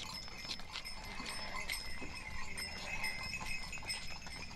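Herd of small livestock with bells clinking and jingling, many short clicks over faint steady ringing.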